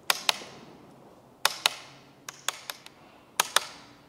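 JQ Werks Madtrace magnetic carbon-fibre paddle shifter on a BMW F-series steering wheel being pulled and released, giving sharp clicks in pairs about a fifth of a second apart. There are three such pairs, with a quicker run of four clicks in the middle.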